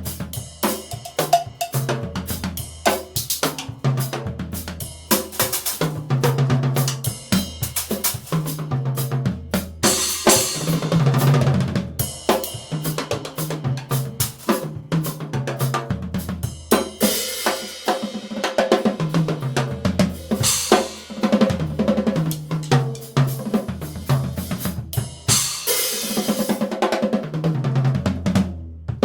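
Drum kit with Yamaha toms played continuously: pitched tom strokes stepping between drums in fills, with snare, bass drum and several cymbal crashes.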